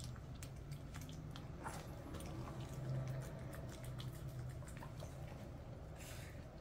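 Pomeranian eating dried sweet potato: faint wet mouth clicks and smacks, over a low steady hum.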